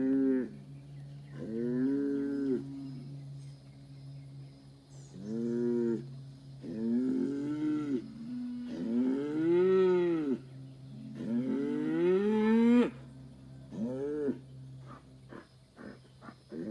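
Young Angus bull bellowing over and over in agitation: about seven loud calls, each rising and then falling in pitch, the longest ones near the middle.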